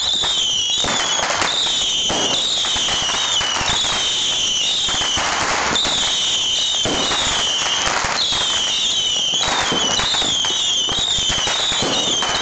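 A homemade rack launcher firing thousands of bottle rockets in a continuous stream. Many overlapping shrill whistles waver up and down, over steady hissing and dense popping.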